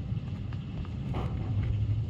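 Thunderstorm: a low, rolling rumble of thunder over steady rain, swelling slightly in the second second.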